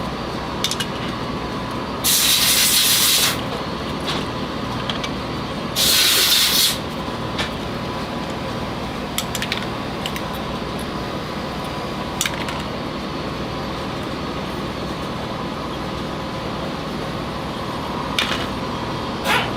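Two short bursts of hissing spray, each about a second long, a few seconds apart, over a steady background hum with scattered small metallic clicks and taps.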